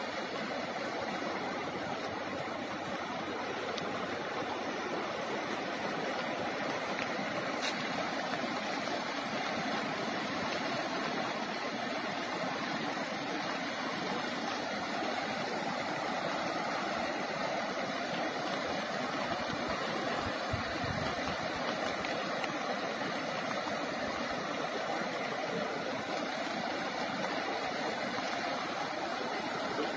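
Floodwater of the Ravi river rushing past in a steady, unbroken roar of moving water, the river running in high flood.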